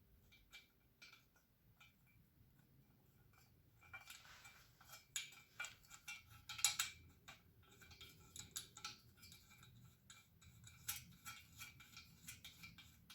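Light metallic clicks and clinks of a screw being driven by hand into a metal shelf frame, the metal parts knocking together. The clicks are irregular and quiet, growing more frequent and a little louder from about four seconds in.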